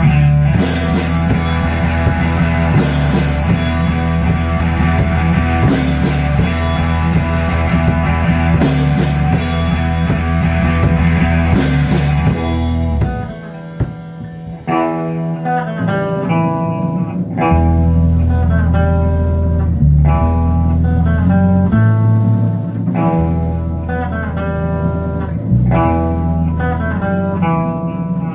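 Rock band rehearsing live: a Sonor drum kit, bass guitar and electric guitar playing together. The first half is dense, with cymbal crashes about every three seconds. About halfway through, the crashes stop and the music thins to clear, repeated guitar and bass notes over lighter drums.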